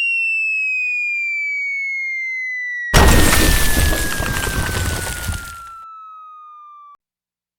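Cartoon sound effects: a long whistle falling steadily in pitch, the classic sound of something dropping from a height. About three seconds in, a loud explosion bursts in and dies away over a couple of seconds while the whistle keeps falling, until it cuts off near the end.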